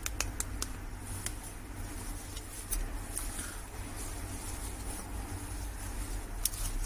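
Scattered light clicks and ticks of fingers pressing a glass phone back cover down onto its double-sided tape around the edges, several close together at the start, then single ones. A steady low hum runs underneath.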